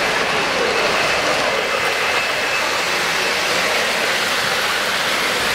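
O-gauge model steam locomotive, an N&W J-class from an MTH Powhatan Arrow set, running on three-rail track with a steady rolling rumble and hiss.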